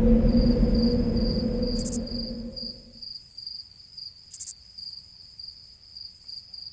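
Cricket chirping steadily, a high pulsed trill of about four chirps a second, with a few short high buzzes. A low droning hum fades out over the first three seconds.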